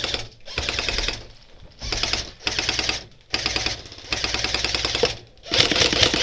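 Airsoft electric gun firing on full auto in about six short bursts of rapid, even clicking, with brief pauses between bursts.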